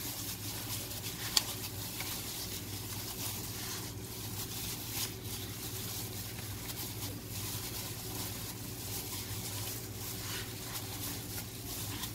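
A hand in a thin plastic glove kneading spice marinade into raw chicken breasts: soft, irregular wet squishing and plastic-glove crinkling over a steady low hum. A single sharp click about a second and a half in.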